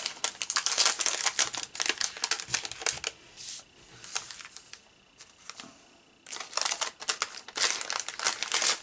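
Thin clear plastic sheet crinkling and crackling as hands handle it, likely while sticker pieces are peeled off it. The crinkling is dense for the first three seconds, nearly stops for a few seconds in the middle, then picks up again about six seconds in.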